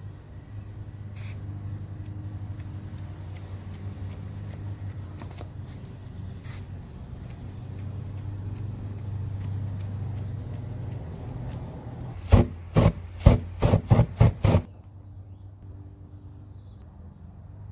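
Rubbing and scraping from spray paint artwork in progress over a steady low hum, then about seven short, loud, hissing bursts in quick succession about twelve seconds in.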